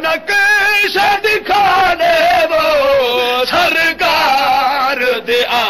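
A man chanting a Punjabi devotional nazm in a melodic voice, holding long wavering notes.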